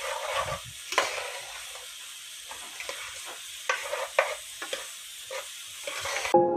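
Food sizzling in hot oil in a pan while being stirred, with a few sharp scrapes and knocks of the utensil against the pan.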